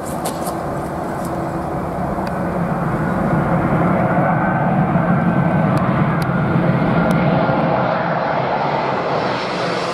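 Twin-engine wide-body jet airliner on final approach with gear down, passing low overhead: the jet engines' noise swells to its loudest about four to six seconds in, with a faint whine, then eases as the hiss thins out near the end.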